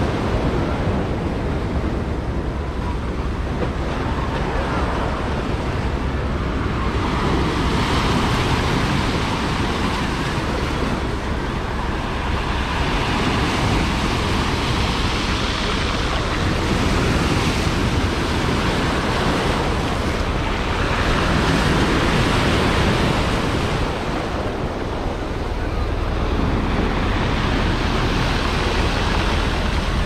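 Sea surf breaking and washing up a pebble beach: a steady rushing hiss that swells and ebbs with each wave every several seconds.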